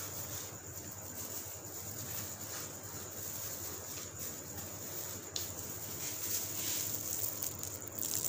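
Quiet room tone: a steady hiss with a faint low hum, and a few faint light ticks.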